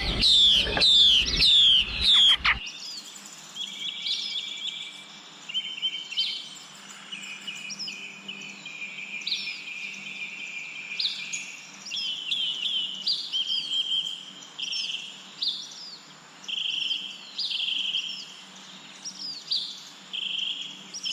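Songbirds singing: loud, quick downward-sweeping chirps for the first two seconds or so, then a sudden cut to another recording of short high trills and notes repeated every second or so.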